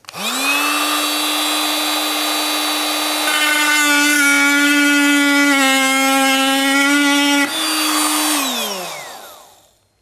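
A Fein cordless oscillating multi-tool runs with a steady, loud high buzz as its blade plunge-cuts into a wooden batten. About 8 seconds in, the buzz falls in pitch and fades as the tool winds down.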